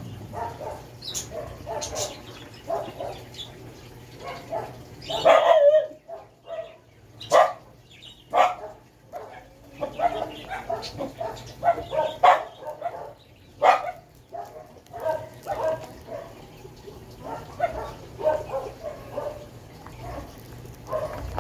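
A dog barking and yipping over and over, short calls close together, with a few sharper, louder cracks among them as a durian's spiky husk is pried apart by hand.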